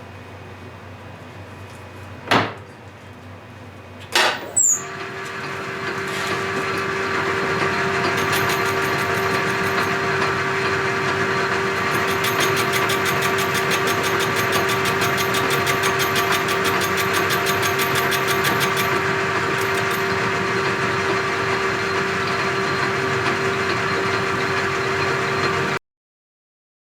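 South Bend 13 metal lathe turning down the diameter of a workpiece: after a couple of knocks, the machine runs with a steady hum and a constant whine as the cut goes on, then stops abruptly near the end.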